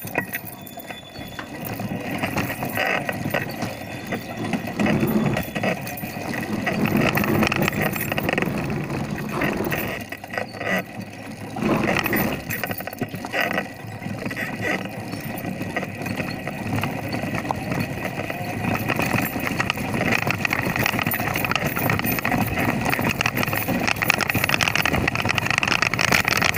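Motorcycle engine running while riding over a dirt road, under a steady rush of wind noise on the microphone, with irregular surges in level.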